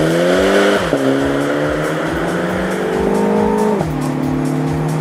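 Mini Cooper S Cabrio's turbocharged four-cylinder engine accelerating hard in Sport mode. Its pitch climbs, drops sharply at an upshift about a second in, climbs again and drops at a second upshift near four seconds in, then runs steadily. Background music with a steady beat plays underneath.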